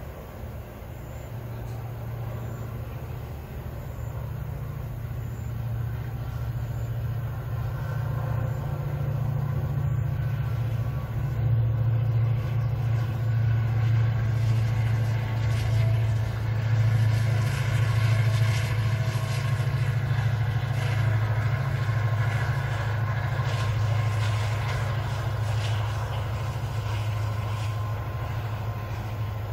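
Diesel-hauled freight train of tank wagons passing: a steady low locomotive engine drone with the rumble of wheels on rail, growing louder to a peak about two-thirds of the way through and easing off slightly near the end.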